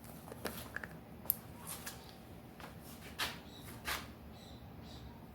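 Faint scattered handling noises, soft rustles and a few light clicks with one sharper click about a second in, from hands working SRAM Butter grease onto a bicycle dropper post.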